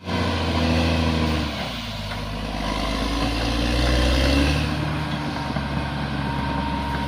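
A bulldozer's diesel engine running under load. It dips about a second and a half in, then swells again around four seconds.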